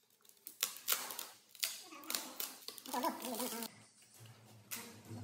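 Plywood pieces knocking and clattering as they are handled and set down on a plywood panel, with several sharp knocks in the first two seconds and one more near the end. A voice speaks briefly about three seconds in.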